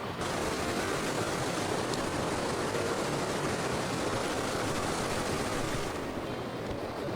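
Steady rushing hiss. It turns brighter just after the start and duller again about six seconds in.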